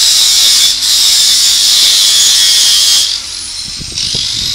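Welding arc sizzling as a Hitbox inverter welder lays a short weld on a metal flower pot stand; the arc breaks briefly just under a second in and stops about three seconds in. A few low knocks follow near the end.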